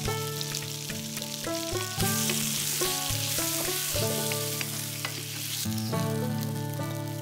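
Pumpkin cubes sizzling in hot oil in a stainless steel pan, turned with a wooden spatula; the sizzle grows loudest through the middle. Gentle plucked-string background music plays throughout.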